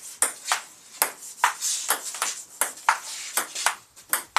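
Table tennis rally: a plastic ping pong ball clicking off the paddles and the table top in quick alternation, about a dozen sharp clicks.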